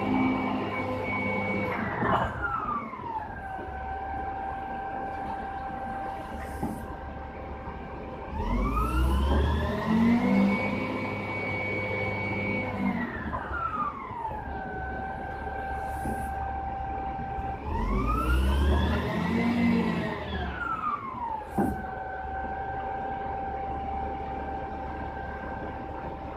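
A machine's high whine with overtones gliding up and down in pitch: it drops about two seconds in and holds low. It then climbs and holds high twice more, falling back each time, with a low rumble under each climb, like a motor being sped up and slowed down.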